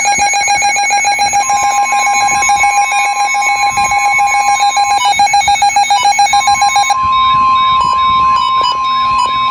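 Electronic emergency-alert tones announcing a severe thunderstorm warning: a fast, buzzy beeping with a steady high tone above it for about seven seconds, then the steady tone carries on over a quick repeating warble.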